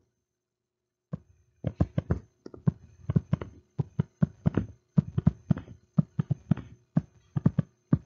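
Stylus tapping and knocking on a tablet screen while writing out letters by hand, a quick uneven run of short sharp taps, several a second, starting about a second in.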